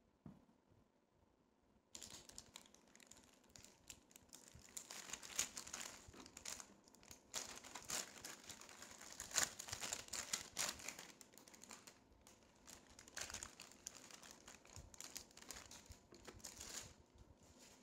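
Aluminium foil and paper wrapping crinkling and rustling as a shawarma roll is unwrapped by hand, starting about two seconds in.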